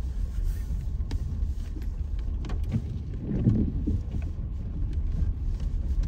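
Steady low rumble of a 2017 Hyundai Tucson on the move, heard from inside the cabin, with a few faint clicks.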